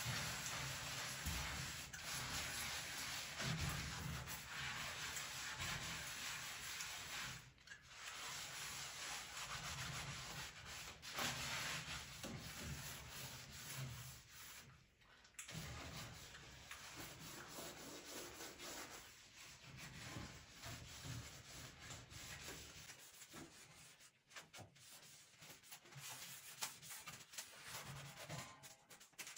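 Scouring sponge scrubbing a soapy electric stove top and its solid hotplates: a rubbing, scraping swish with short pauses, quieter near the end.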